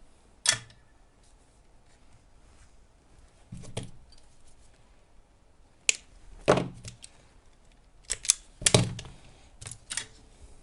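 Sharp clicks and snips from hand tools working on wire at the bench, about nine in all, spaced irregularly with several close pairs. The loudest come just before a second in and around six and nine seconds in.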